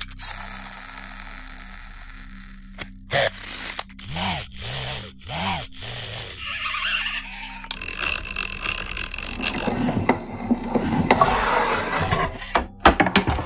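A run of short clockwork and small-mechanism sound effects, one after another. First a steady whirring, then a few sharp clicks, three rising-and-falling scraping strokes, and from about the middle on a dense rattling and scraping of small metal parts.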